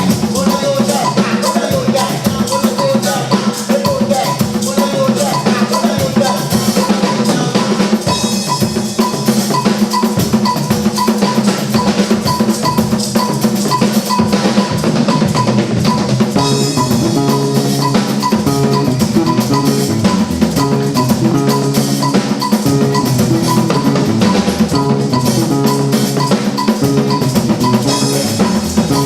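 Music driven by a busy drum kit, with bass drum, snare and rimshots, over a stepping bass line and other pitched parts.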